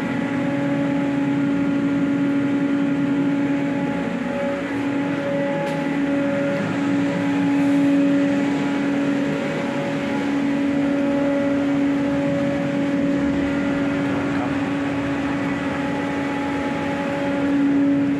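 Steady machinery hum: a strong low drone with fainter higher tones above it, swelling and fading a little.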